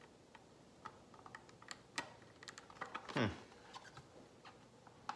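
Scattered light clicks and taps of a hard clear-plastic graded comic slab being handled, with a louder click about two seconds in and a short squeak falling in pitch just after three seconds.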